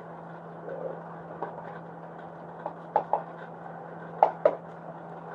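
A few sharp plastic clicks and taps from handling an oil-additive bottle and fiddling with its cap, over a steady low hum.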